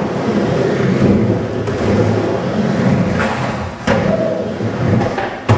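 Skateboard wheels rolling on a smooth concrete bowl, a steady low rumble, with two sharp clacks from the board near the end.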